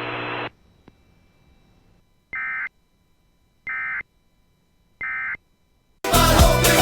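Three short, identical EAS end-of-message data bursts: harsh, warbling digital beeps about a second and a half apart, the signal that closes an emergency alert broadcast. The alert audio before them cuts off about half a second in, and a loud burst of sound begins near the end.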